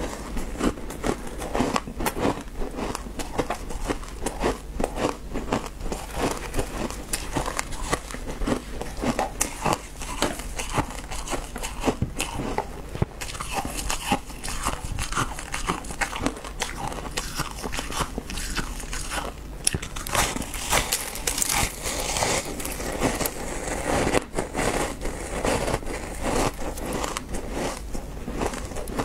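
Close-miked crunching of shaved ice as chunks are bitten off and chewed, a dense run of crisp crackles and crunches with no words.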